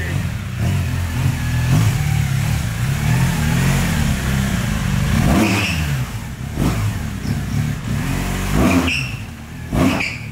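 BMW R 1200 GS boxer-twin engine running at low revs as the motorcycle rolls slowly, the revs rising and falling with the throttle. A few short knocks come about halfway through and near the end.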